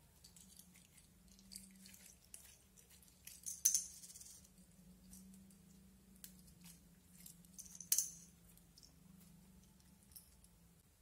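Clear glitter slime being stretched, folded and squeezed by hand, with soft sticky crackles and small pops, and two louder pops about four seconds and eight seconds in.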